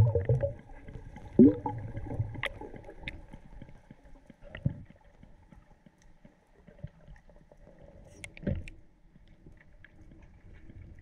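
Small fishing boat riding at anchor: water gurgling against the hull, a short creak about a second in, and a few sharp knocks scattered through.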